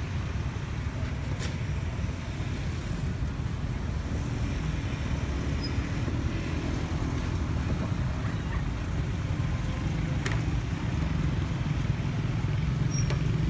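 Road traffic going by: motor scooters and cars make a steady low rumble, with a few faint clicks.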